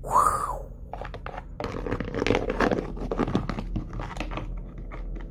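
Hard plastic toy figures being handled and moved over a papier-mâché rock landscape: a busy run of irregular clicks, scrapes and crinkling knocks. It opens with a short rising-and-falling sweeping sound, the loudest moment.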